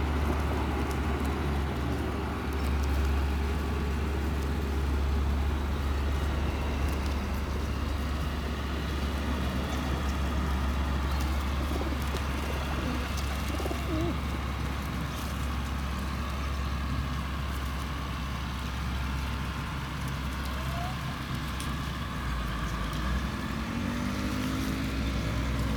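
Feral pigeons cooing around the feeding spot over a steady low rumble.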